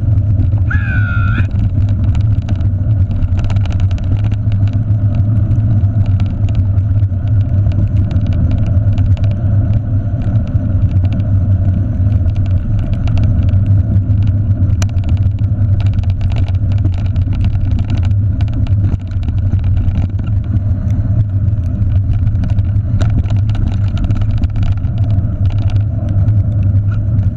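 Steady loud low rumble of wind and rolling noise on a handlebar-mounted camera as a mountain bike is towed fast along a dirt trail by running sled dogs. About a second in, a brief high wavering call sounds over the rumble.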